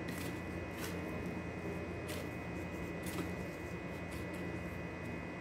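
Faint rustling and a few light, brief taps as a hand rolls a Spanish bread dough roll in breadcrumbs, over a steady electrical hum.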